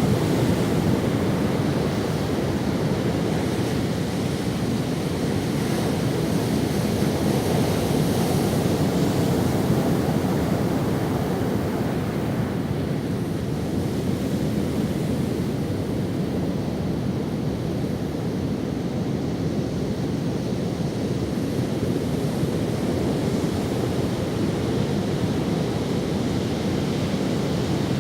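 Ocean waves washing onto a sandy beach in a continuous low rush, swelling slightly about a third of the way in.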